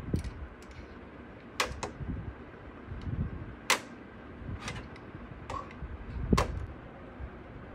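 Plastic ARGB controller box clicking and tapping against the steel PC case as it is set in place on its magnet. There are about six irregular sharp clicks, the loudest near the middle and near the end, with soft handling thuds beneath them.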